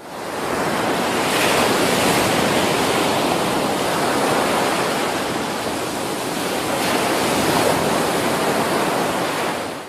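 Ocean surf: waves breaking and washing in a steady rushing noise that fades in over the first second and cuts away just before the end.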